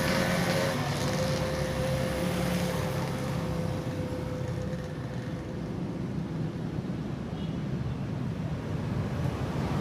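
Roadside traffic: passing vehicle engines. A steady engine note fades over the first few seconds, and the noise builds again near the end as another vehicle approaches.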